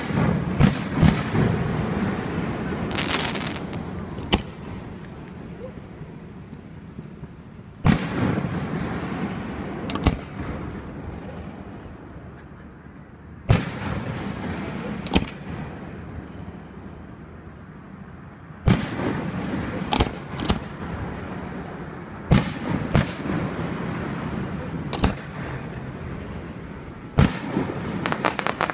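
Aerial fireworks shells bursting overhead in a display, more than a dozen sharp booms, each followed by a rolling echo. Some come in quick clusters and others are several seconds apart.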